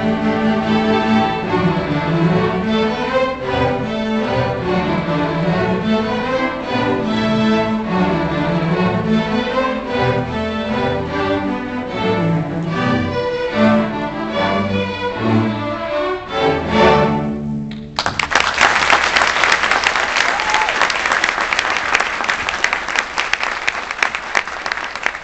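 String orchestra of violins and cellos playing, ending with a few short chords about seventeen seconds in. Audience applause breaks out right after and runs on.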